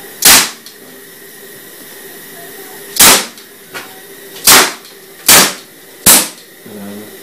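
A pistol fired five times at uneven intervals, each shot a single sharp report with a short tail, the first about a quarter second in and the other four in the second half.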